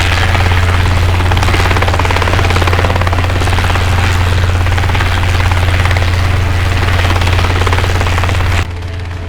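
Helicopter rotor running steadily with a fast, even chop. It drops abruptly to a lower level near the end.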